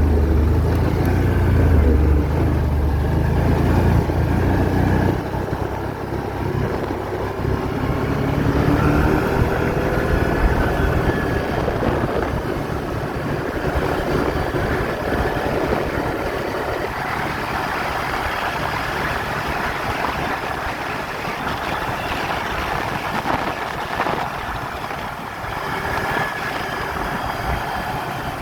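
ATV engine running under way, its pitch rising and falling as the throttle changes. A strong low engine note for the first five seconds gives way to a rougher, noisier sound.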